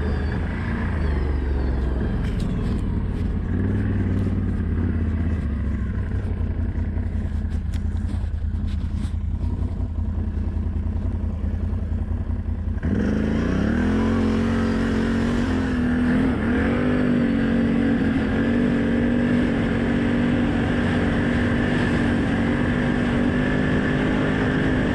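ATV engine running as the quad is ridden, a low rumble with some knocks at first; about halfway through the engine note jumps up, rises and then holds steady at a higher pitch as it pulls under throttle.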